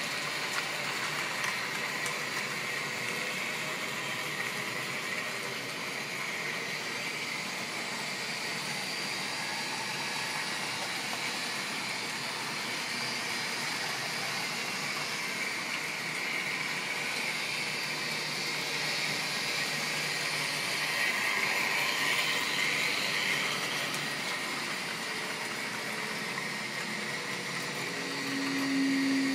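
Model railway trains running on the track: a steady whirr of the locomotive motor and rolling-stock wheels, swelling slightly about two-thirds of the way through, with a short low hum near the end.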